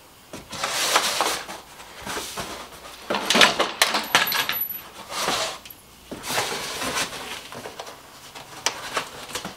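Loose, unbagged small metal hardware (bolts and washers) clinking and rattling inside a cardboard box as hands rummage through it, with cardboard rustling, in several separate bursts.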